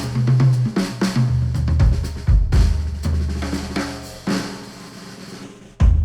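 Instrumental music with a drum kit and bass line, played back through headphones and picked up by microphones. It thins out and drops in level about four seconds in, then the full beat comes back hard just before the end.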